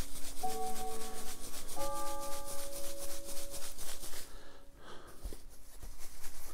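A pile of draw entry slips being shaken inside a felt top hat: a rapid, rhythmic swishing and rattling that dies down about four seconds in.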